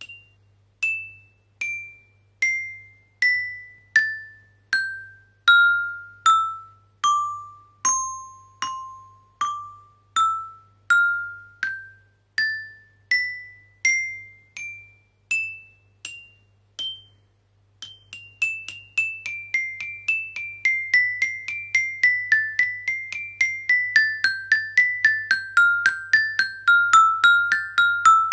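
Small red-barred glockenspiel (metallophone) struck with a single wooden mallet: single ringing notes, a little under one a second, step down the scale and back up again. After a short pause, a faster melody of about three or four notes a second begins.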